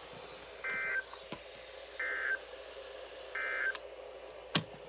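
NOAA Weather Radio SAME end-of-message data: three short, identical bursts of two-tone data about 1.4 s apart, marking the end of the test alert. They play over steady radio hiss with a few sharp clicks, the loudest click near the end.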